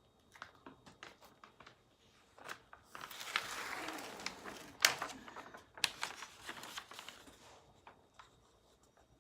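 Diamond painting canvas with its plastic cover film crinkling and rustling as it is handled and laid down. There is a longer rustle about three seconds in and a few sharp clicks and taps.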